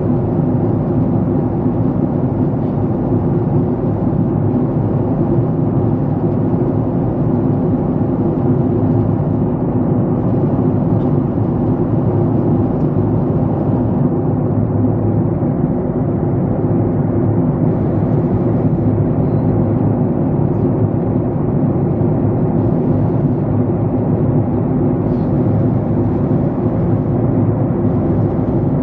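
Steady low drone of jet engines and airflow heard inside an airliner's cabin at cruising altitude, even in level throughout.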